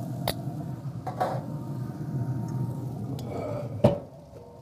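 Metal tongs clicking against a Traeger pellet grill's grate over a steady low rumble. The grill lid shuts with a loud clank about four seconds in, and the rumble drops away after it.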